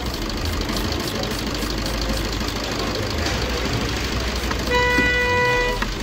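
A vehicle horn sounds once, a steady held honk of about a second near the end, over continuous street and traffic noise.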